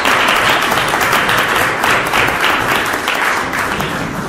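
Audience applauding: many hands clapping steadily, easing slightly toward the end.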